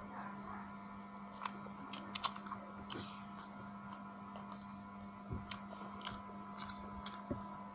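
Close-up eating sounds: a person chewing and biting soy-sauce chicken and egg, with scattered small wet mouth clicks. A steady low hum runs underneath.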